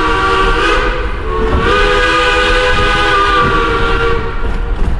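Steam locomotive chime whistle blowing long held blasts, several pitches sounding together. There is a short break about a second and a half in, and the whole sounds over the low rumble of the moving train.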